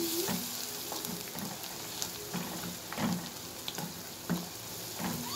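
Sliced onions with spices and ginger-garlic paste sizzling in hot oil in a pan, with a spatula stirring them and scraping the pan now and then.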